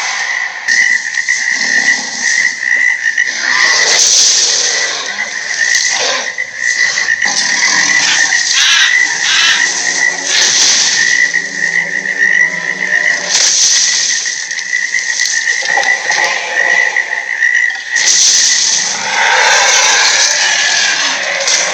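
Loud croaking animal calls over a steady, high-pitched trill that breaks off for a few seconds near the end.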